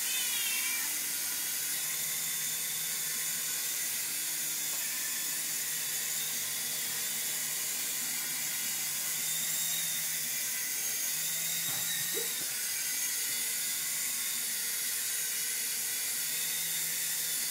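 Small electric RC toy helicopter's motor and rotor whirring steadily in a high whine, its pitch wavering slightly as it is flown. About twelve seconds in, a brief knock and a short rising squeak.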